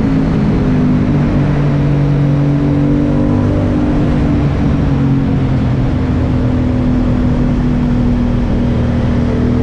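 Aprilia Dorsoduro 750's V-twin engine running at a fairly steady note while the bike slows down, heard from the rider's seat inside a road tunnel.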